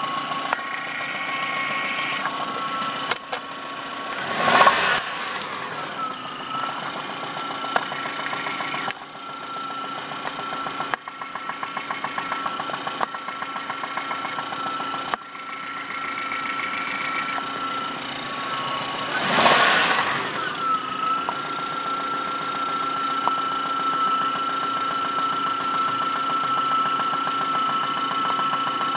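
1997 Saturn SC2 engine running with the knock the owner is trying to diagnose, a knock that began after the engine was taken to high RPM. It is revved briefly twice, about four seconds in and again near twenty seconds, and a rapid, even ticking stands out for several seconds in the middle.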